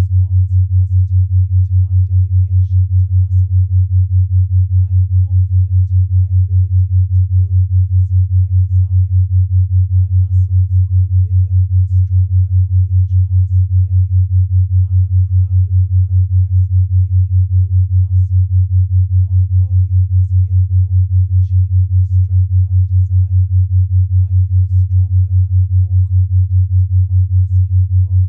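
Binaural-beat tone: a steady low pure tone of about 100 Hz that pulses rapidly and evenly, beating at 5 Hz.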